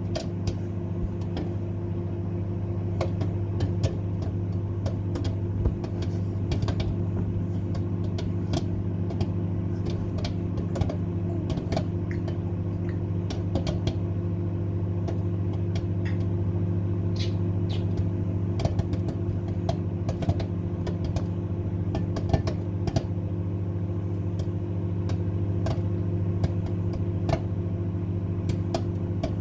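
Microwave oven running with a steady hum while popcorn pops inside, the kernels going off as sharp, irregular pops throughout.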